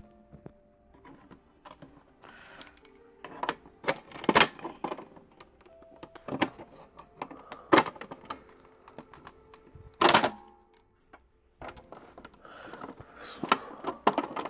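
Sharp clicks and knocks of a hard plastic toy-computer case being pried open and handled, coming every second or two, over faint background music.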